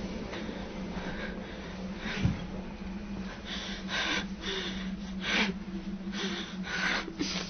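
A person breathing hard in short, ragged gasps and sniffs, about ten uneven breaths, over a steady low hum.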